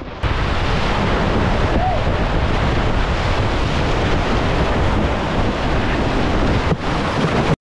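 Whitewater rapids rushing and splashing loudly around a canoe as it runs through them, with water and wind buffeting the microphone. The sound is steady and cuts off abruptly at the end.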